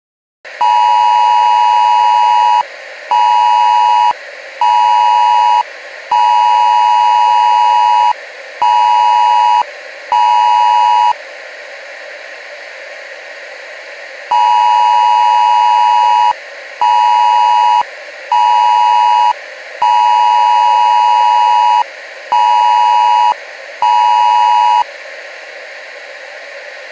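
Wireless Emergency Alert attention signal: a loud two-pitch beep sounding in a long-short-short rhythm (about two seconds, then one second, one second), repeated as two groups with a pause between them, over a steady hiss of static.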